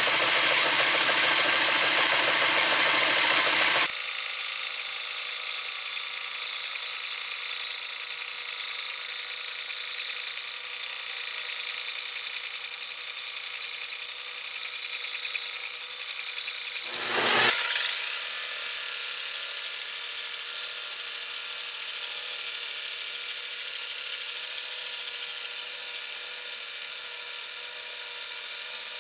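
Homemade mini band sawmill, driven by a treadmill motor, running slowly while its blade cuts through a log: a steady mechanical whine made of several high steady tones. About four seconds in the lower, fuller part of the sound drops away abruptly, and a quick falling sweep in pitch comes about seventeen seconds in.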